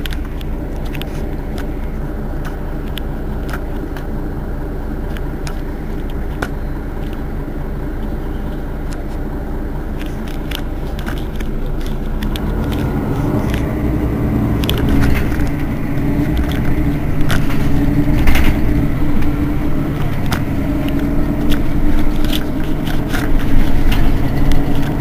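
Mercedes-Benz Citaro city bus standing at a stop with its rear engine idling steadily. The engine grows louder from about halfway through, with scattered light clicks.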